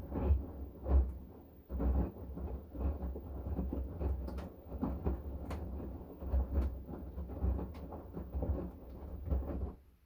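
LG direct-drive front-loading washing machine turning its drum in a wash cycle: wet laundry and water sloshing and tumbling with a low rumble and a thump about once a second, stopping shortly before the end as the drum comes to rest.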